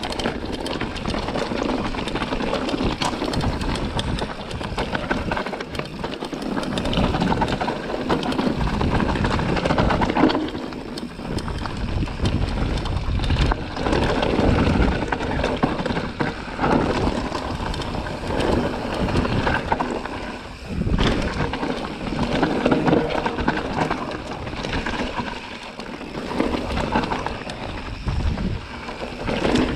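Transition Sentinel full-suspension mountain bike riding down a forest dirt trail: tyres rolling and scrabbling over dirt, roots and stones, with the bike rattling and clattering over bumps, and wind rushing on the camera microphone.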